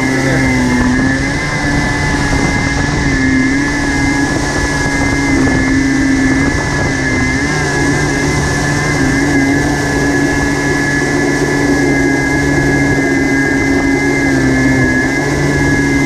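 1987 Kawasaki X2 personal watercraft's two-stroke engine running steadily under way, its pitch dipping and rising slightly a few times as the throttle eases and opens, with a steady hiss of water and wind underneath.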